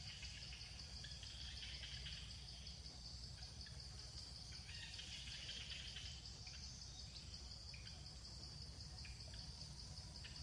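Faint outdoor ambience: insects droning steadily at a high pitch, with scattered small clicks and a low rumble underneath.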